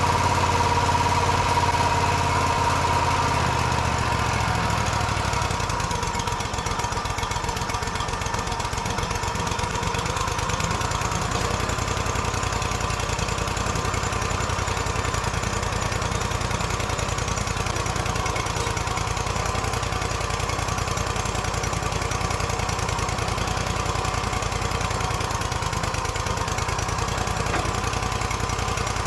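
Portable bandsaw sawmill's engine running steadily. About four seconds in, a deeper drone drops away and the running settles to an even level.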